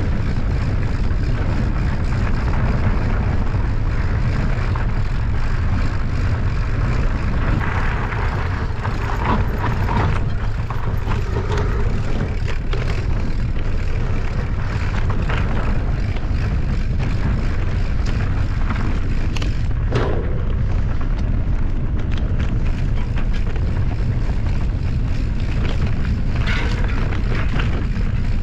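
Heavy wind rumble on the microphone over the rattle and crunch of a mountain bike riding fast over rough, stony ground, with frequent small knocks and clatters.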